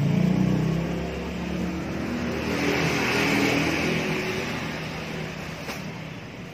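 A motor vehicle engine running, louder at the start and again in the middle, then fading away.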